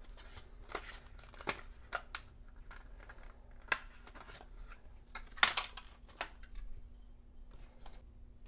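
Pokémon card blister packaging, paper-card backing and plastic, being torn and crinkled open by hand, in a series of short crackles and rips. The loudest cluster comes about two-thirds of the way in.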